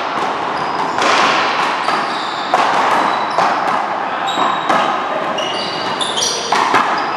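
Rally of a rubber ball smacked by paddles and hands and rebounding off the wall and floor: sharp smacks about every second, each ringing in a large hall, with short sneaker squeaks between them.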